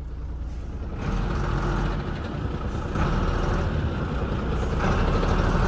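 Box truck's diesel engine running under light throttle as it creeps forward, getting louder about a second in and again around three seconds.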